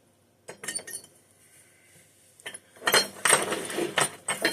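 Small metal carburetor parts clinking and clattering as they are handled and set down: a few sharp clinks about half a second in, then a busier run of clinks from about three seconds in.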